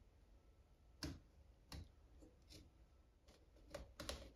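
Utility knife cutting through an interlocking foam floor tile along a steel square: faint short scraping clicks, a few spread out and then several in quick succession near the end.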